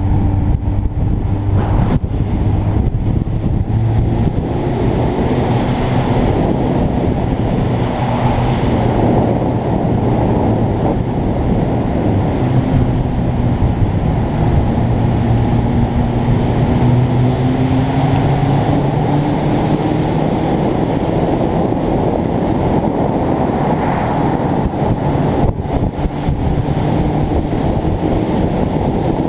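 Motorcycle engine running at a steady cruise, mostly buried under heavy wind noise on the microphone; the engine drone drifts slowly up and down in pitch with road speed.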